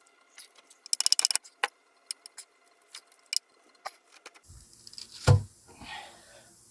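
Screwdriver prying a sealant-bonded oil pan off the engine: a quick run of small metal clicks about a second in, scattered taps, and one heavier knock about five seconds in.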